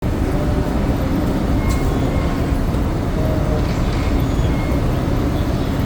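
Steady low rumble of road traffic and street noise.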